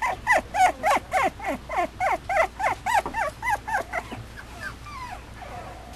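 Mame Shiba puppy giving a fast run of short high-pitched yelps, about four a second, each rising and falling in pitch, growing fainter after about four seconds.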